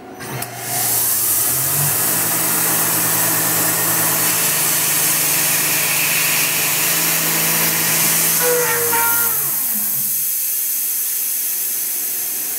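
Tormach CNC mill spindle spinning up and running with a steady hum under a loud hiss as the end mill feeds into a tellurium copper blank, cutting too deep because the Z axis was zeroed too low. About nine seconds in the hum falls in pitch and dies away as the spindle stops, leaving the hiss fading slowly.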